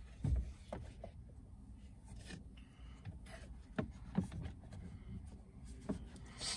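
Plastic dashboard trim of a pickup's gauge-cluster bezel being handled and pried loose by hand: quiet rubbing with a few light clicks and taps.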